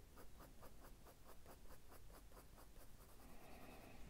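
Soft-core Prismacolor coloured pencil scratching faintly on paper in quick, short hatching strokes, roughly six a second, growing fainter near the end.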